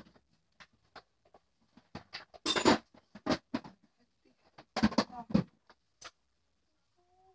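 Scattered knocks, bumps and rustles of people moving about and handling things in a small room, with two louder clusters of thumps and rustling about two and a half and five seconds in.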